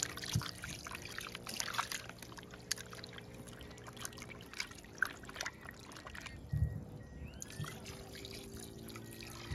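Water poured from a plastic jug over raw chicken pieces in a plastic basin, with splashing and small clicks as hands rub the chicken to rinse off its vinegar. A dull thump about two-thirds through.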